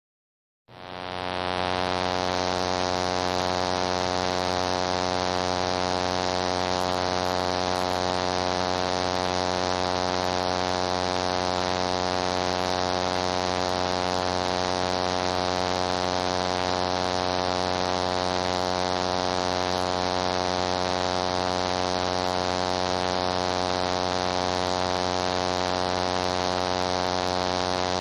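High-voltage substation transformer humming: a steady electrical hum with a dense stack of overtones and a buzzy hiss above it, fading in under a second in and then holding constant.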